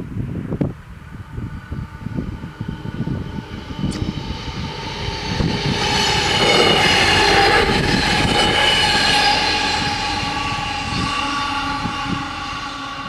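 Stadler GTW diesel multiple unit passing over a level crossing: its running sound builds, peaks about halfway through with a steady whine from the engine and drive, then slowly fades.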